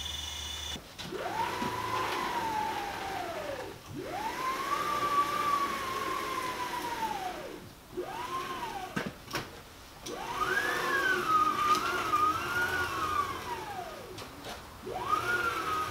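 Stepper motors of a belt-driven CNC router driving the gantry through a series of moves, the machine's first motion under its controller: each move is a whine that rises in pitch as it speeds up, holds, and falls as it slows down. There are four moves with short pauses between them and a fifth starting near the end, with a sharp click between the third and fourth.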